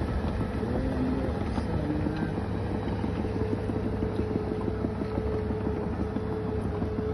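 Bulldozer's diesel engine running steadily, a continuous drone with a held tone and light, regular ticking through the middle.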